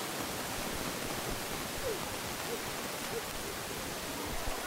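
Steady outdoor stadium ambience with a hissing noise bed, over which a few short, faint shouts from distant voices rise and fall.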